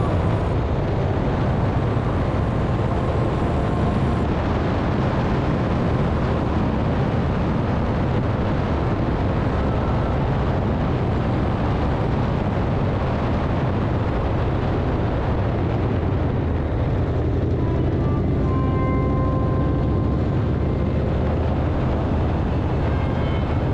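Harley-Davidson V-twin motorcycle cruising at a steady speed: engine drone with a continuous rush of road and wind noise.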